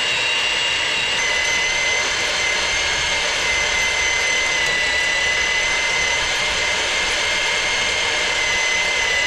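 A machine running steadily with a loud, high-pitched whine over a broad rushing noise. Near the end its pitch starts to fall as it winds down.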